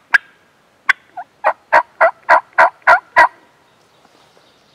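Turkey yelping: a series of about ten loud, sharp yelps at roughly three a second.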